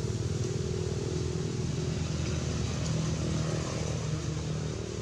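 An engine running steadily, a low even drone that swells slightly about three seconds in.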